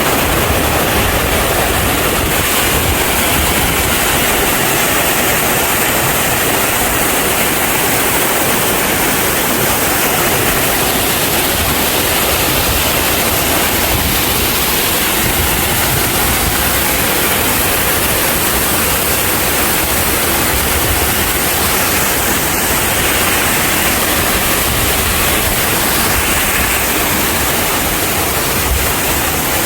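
Water rushing and cascading over rocks in a mountain stream and its waterfalls: a loud, steady rush with no breaks.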